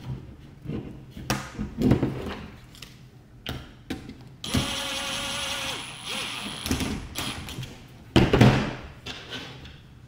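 Cordless power screwdriver running for about a second and a half, driving a screw home. Around it, plastic and metal parts click and knock as they are handled, with a couple of louder thumps, the loudest near the end.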